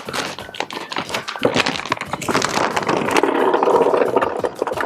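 A plastic bag of boilies being opened with crackles and clicks, then about two kilograms of hard boilies poured into the plastic hopper of a Ridge Monkey Advanced Boilie Crusher. The pour starts about two seconds in and makes a dense, continuous rattle as the baits tumble in.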